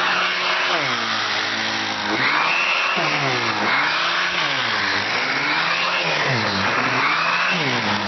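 Vintage Electrolux central vacuum running, air rushing through the hose and cleaning tool. A tone in it dips and rises again about once a second as the nozzle is worked back and forth over upholstery.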